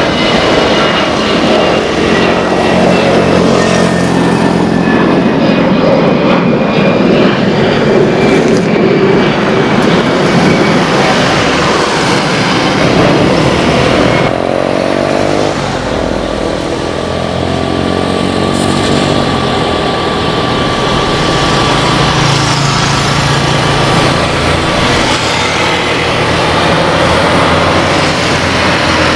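Jet airliner engines at takeoff thrust. First an Airbus A320neo climbs away, its engine whine falling in pitch as it passes. Then, about halfway, a Boeing 737-800's CFM56 engines run at takeoff power through its takeoff roll and lift-off, with a steady whine over the roar.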